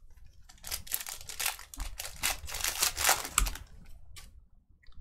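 Trading-card packs and cards being handled, a dense run of crinkles and sharp clicks lasting about three seconds, then a few scattered clicks.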